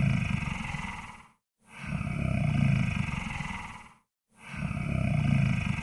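Monster snore sound effect: deep, rattling snore-breaths, each about two and a half seconds long, swelling and fading, repeating with short silent gaps between them.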